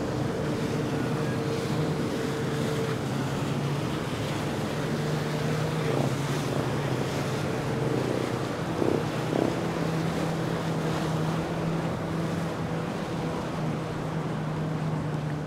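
Yamaha FX High Output WaveRunner engine running at a steady pitch under the hiss of its spray and wash, with wind on the microphone. Two short thumps come a little past halfway.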